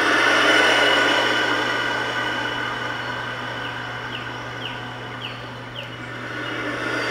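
Recorded vehicle noise played back for puppy sound conditioning: a steady rushing sound that swells, fades over several seconds and swells again near the end, with a few short high chirps in the middle.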